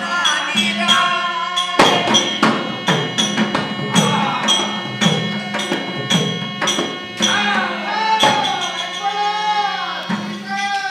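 Live folk-music accompaniment to a shadow-puppet Ramayana: sharp, even percussion strikes about three a second over a steady held drone. A voice sings over it, most clearly in the second half.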